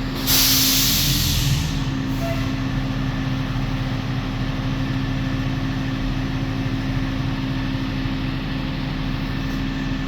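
A MIG welder sputtering in a hissing burst about a third of a second in, lasting roughly a second and a half, over a steady machine hum that carries on after it.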